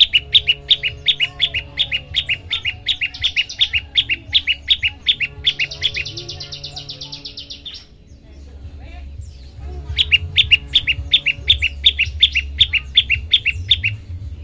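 Prenjak lumut singing: fast runs of sharp, repeated chirps at about five a second, broken twice by quicker trills. The song pauses for about two seconds past the middle, then starts again. A steady low hum runs underneath.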